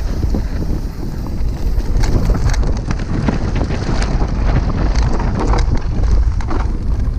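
Wind buffeting the microphone of a helmet-mounted GoPro as a downhill mountain bike rolls fast over a dirt trail, with tyre rumble and a steady run of rattles and knocks from the bike over the bumps.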